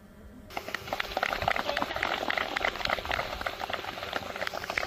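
A group of people clapping, starting suddenly about half a second in.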